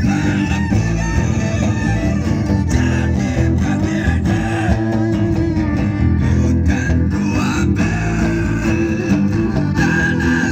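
A man singing into a microphone while playing an acoustic guitar, a live vocal-and-guitar performance.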